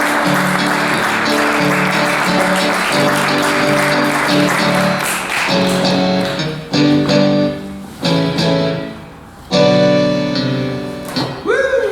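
Audience applauding over live instrumental music played as sustained chords. The applause dies away about six seconds in, leaving the chords ringing out with short pauses between them.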